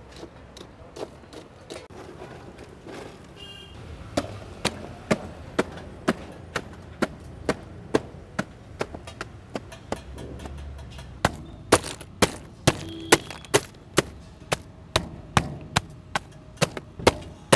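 Ice being broken up by hand in a metal ice box: sharp strikes at about two a second, beginning about four seconds in after a few lighter taps.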